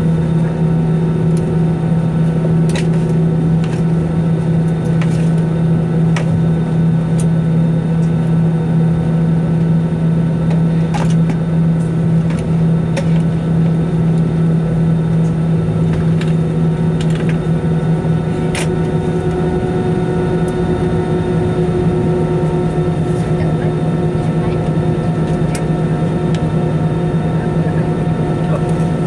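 Airbus A320 cabin on the ground before takeoff: a steady low hum of the engines and air-conditioning, with a few fainter steady whines above it and scattered small clicks and rattles. The hum eases slightly about two-thirds of the way through.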